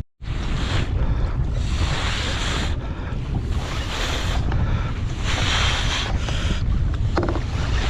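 Wind buffeting a GoPro microphone at sea, with sea water washing and splashing in repeated surges. The sound drops out briefly at the very start, and there are a few faint clicks near the end.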